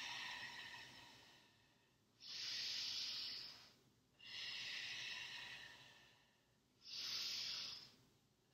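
A woman's deep, audible breathing during a yoga balance pose: four long breaths, each about a second and a half, coming roughly every two seconds with short silences between.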